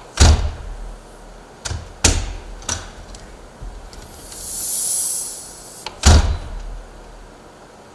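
Aluminum storm door shutting on its pneumatic closer, twice: each time a high air hiss swells and fades as the closer lets the door swing in, then the door bangs shut against the frame. Between the two closes come a few sharp clicks of the latch and handle as the door is opened again.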